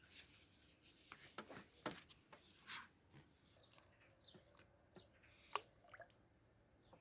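Faint rustling and scattered light clicks, with a few short soft hisses, from something being handled.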